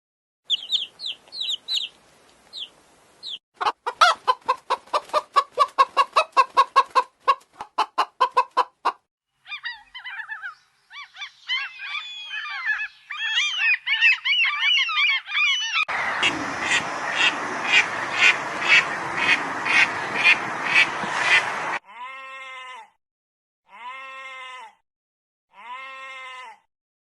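A sequence of different bird calls, cut one after another. First high chirps, then a fast run of about twenty short calls, then several birds calling over each other, then a dense flock din with regular loud calls, and near the end three separate drawn-out calls that rise and fall.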